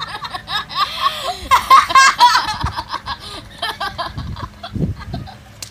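Young girls laughing and giggling in short bursts, loudest about two seconds in, with a few low rumbles near the end.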